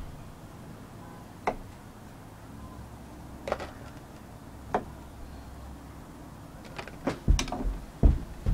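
Hands knocking and tapping on a wooden deck railing: a few sharp taps a second or two apart, then a quick run of louder knocks and heavy thumps in the last second and a half.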